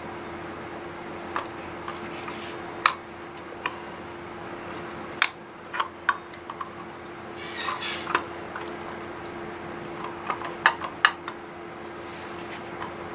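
Scattered metallic clicks, clinks and knocks, with brief scraping, as the crankcase of a Vittorazi Moster 185 paramotor engine is worked apart by hand.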